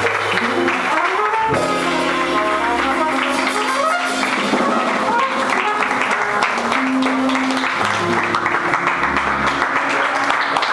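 Small live jazz band playing: trumpet over archtop jazz guitar, upright bass and drums, with held notes and melodic runs. The tune winds to a close near the end, with some audience applause and voices mixing in.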